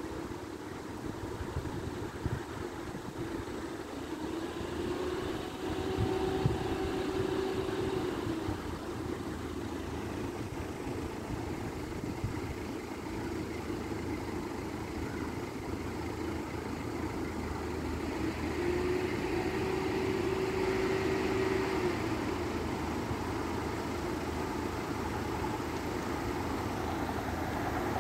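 Steady low engine hum with two short held tones, about a quarter of the way in and again about two-thirds in. Near the end it grows louder as a Class 185 diesel multiple unit approaches the closed crossing.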